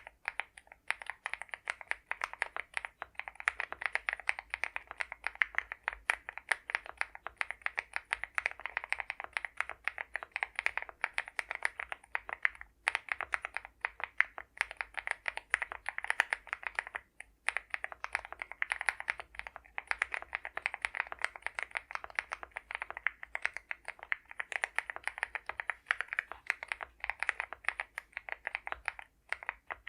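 Continuous fast typing on an Akko MOD006 75% mechanical keyboard fitted with lubed Akko CS Crystal Silver linear switches and PBT cherry-profile keycaps: a dense run of keystrokes broken by a few brief pauses.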